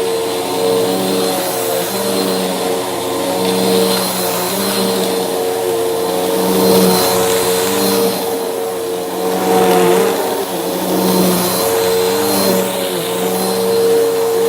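Bissell vacuum cleaner running with a steady motor hum while its brushroll crunches over debris, the crunching noise swelling and fading.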